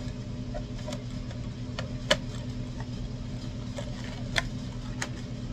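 Scattered sharp plastic clicks and taps, a few in all, as the MJX Hyper Go 16208 RC truck's body shell is worked onto its chassis clips without locking in yet. The loudest click is about two seconds in and another comes just after four seconds, over a steady low hum.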